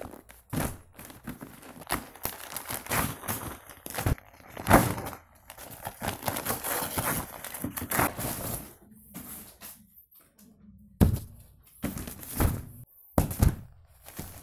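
Gift packaging being unwrapped: paper or plastic crinkling and tearing in irregular bursts, with sharp thumps from the box being handled.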